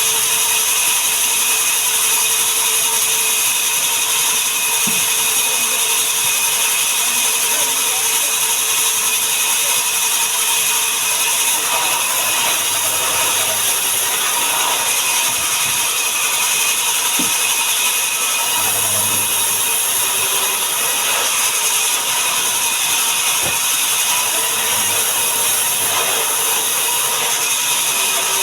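Sawmill saw machinery running steadily: a loud, even hiss with several high held tones over it, and a few faint knocks.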